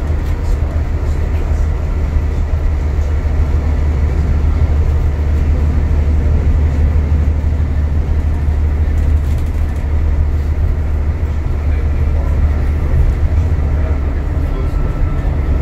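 Alexander Dennis Enviro400 MMC double-decker bus heard from inside the passenger saloon while cruising at speed: a steady low drone of engine and drivetrain mixed with tyre and road noise.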